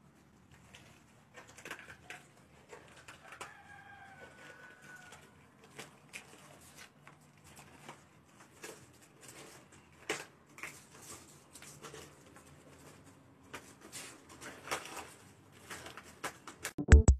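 A cat clawing and biting at a hanging plastic bag: irregular crinkling of plastic and scrabbling of claws on the wall, with a faint high call a few seconds in.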